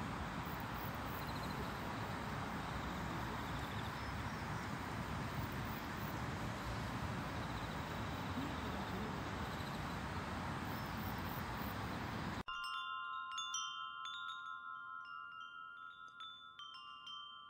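Steady outdoor background hiss, which cuts off abruptly about two-thirds of the way in. Tinkling wind chimes follow, ringing in a scatter of clear tones and fading out.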